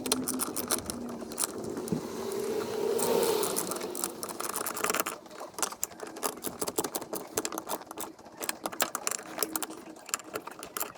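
Ratchet and socket clicking in quick strokes as the brake master cylinder's mounting nuts are tightened onto the brake booster, with a brief whir about two to four seconds in.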